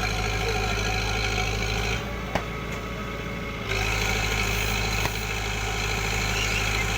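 A heavy machine's engine running steadily at idle with a strong low hum. It dips a little in level for about a second and a half partway through, with a couple of short knocks.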